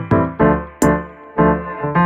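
Background music: keyboard chords over a steady beat.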